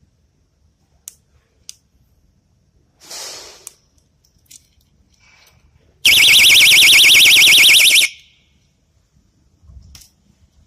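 Personal security alarm keychain sounding for about two seconds: a loud, high-pitched siren tone warbling rapidly up and down, cut off suddenly. A few faint clicks and a short rustle come before it.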